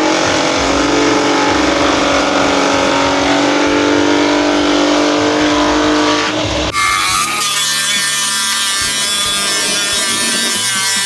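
A motor running with a steady whine. About seven seconds in, it cuts sharply to a different, higher whine.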